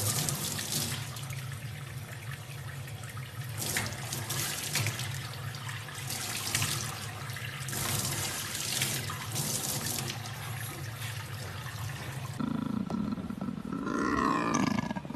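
Tap water running and splashing into a stainless steel sink, with irregular splashes as a baby chimpanzee plays under the stream. Near the end, after the water stops, a big cat vocalises briefly.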